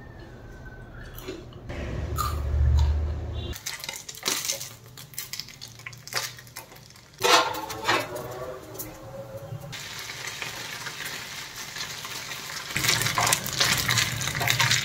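Steel slotted spoon clinking and scraping against a steel kadai, with oil sizzling steadily through the later part as shredded chicken fries.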